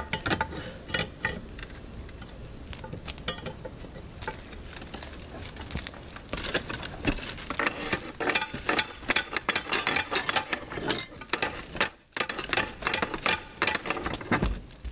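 Concrete roof tiles and wooden battens being handled by hand: hard clinks, knocks and scrapes of tile on tile and on wood, sparse at first and much busier from about six seconds in.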